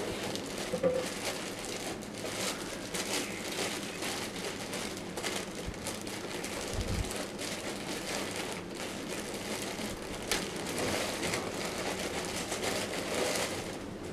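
Clear plastic bag crinkling and rustling in uneven crackles as gloved hands dig into a cardboard box and unwrap an item.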